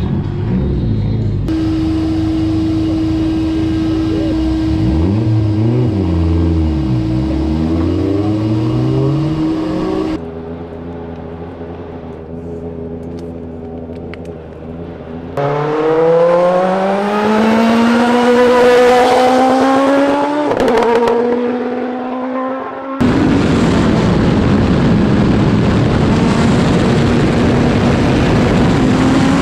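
Turbocharged Toyota 4A-GE four-cylinder engine of a Formula Atlantic race car, heard in a string of edited shots. In one shot it revs up and down. In the middle shot it accelerates hard, rising steadily in pitch with an upshift partway through. The last shot is a steady, loud rush of engine and wind noise at speed.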